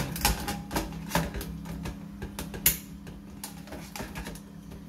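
Chrome flush-button cover plate of a Grohe in-wall cistern being fitted back onto its frame: a series of irregular clicks and taps of metal on the frame and tiles, the sharpest a little before three seconds in. A steady low hum runs underneath.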